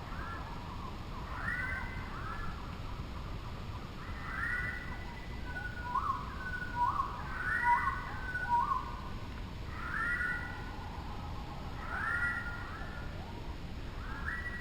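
A bird singing clear whistled notes in short repeated phrases about every two seconds, each phrase a few quick arching or falling whistles, over faint low background rumble.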